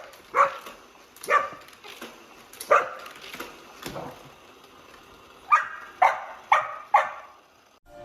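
A dog barking: single barks about a second apart, then a quicker run of four barks near the end.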